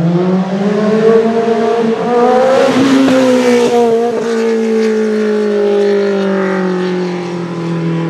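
Peugeot 205 T16 Group B rally car's turbocharged four-cylinder engine at high revs, its note climbing over the first couple of seconds. About three seconds in comes a burst of bangs and crackles as the exhaust spits flame. The note then falls slowly away as the car pulls off.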